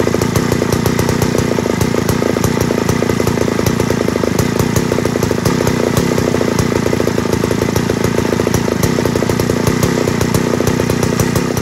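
Two-stroke chainsaw engine running loud and steady, with a dense rapid firing.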